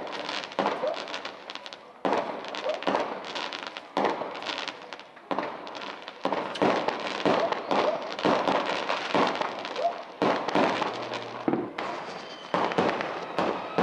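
Fireworks going off: a dense, irregular string of overlapping bangs and crackles, several a second.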